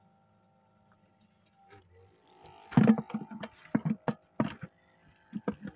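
Near quiet for about two and a half seconds, then a run of sharp knocks and clatters, loudest about halfway in, from gear being moved and bumped around in a fishing boat.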